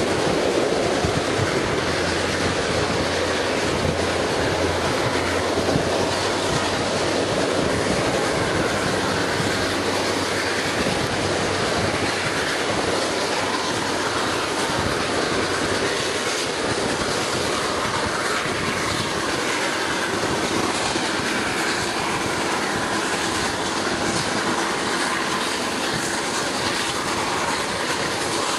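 Excursion train's passenger coach rolling along the track, heard from an open window: steady wheel-and-rail noise.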